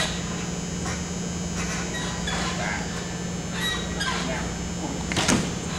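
Uneven bars under a gymnast giving scattered knocks and clacks over a steady electrical hum, with one sharper thump about five seconds in.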